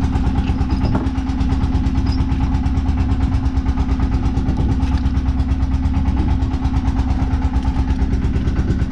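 A fishing boat's engine running steadily, with an even, fast pulsing hum.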